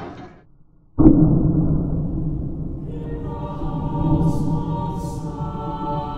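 Choral music: after about a second of near silence it comes in suddenly and loudly with a deep sustained chord, and held voices build up over it from about three seconds in.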